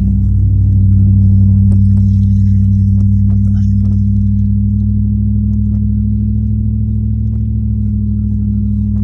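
Toyota 3UZ-FE V8 engine running under steady load while driving, heard inside the cabin as a steady deep drone whose pitch creeps slightly upward.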